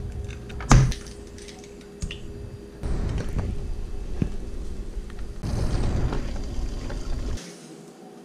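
Eggs frying in a nonstick pan: a sharp knock under a second in, then a sizzle that swells about two-thirds of the way through and drops away near the end, over a faint steady hum.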